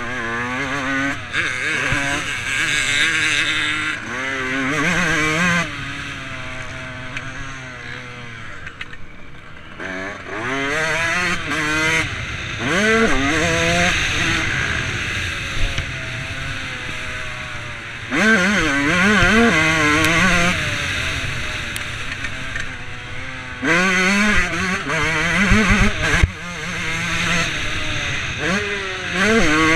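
Dirt bike engine heard from the rider's helmet, revving hard and pitching up and down again and again as the rider accelerates, shifts and rolls off the throttle around a motocross track. The loudest runs of hard acceleration come about ten, eighteen and twenty-four seconds in.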